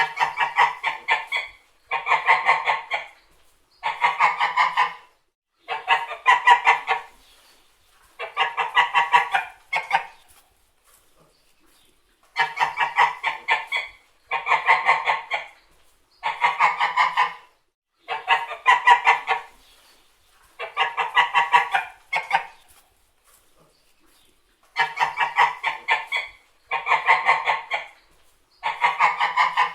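White geese honking in bursts of quick, repeated honks, each burst about a second and a half long, coming every two seconds or so with a couple of longer pauses.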